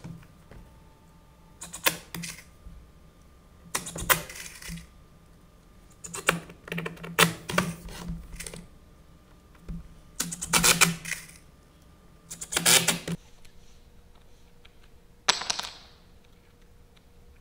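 Cordless drill driving drywall screws through quarter-inch masonite into the stage sub-floor. It runs in about seven short bursts, each a second or less, with pauses between them.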